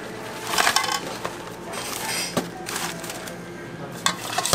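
Fried pork rib pieces and paper bag pouring into a metal wok, a short rush of noise about half a second in. Then a metal ladle clinks and scrapes against the wok as the pieces are tossed in sauce, with sharp clinks about halfway through and near the end.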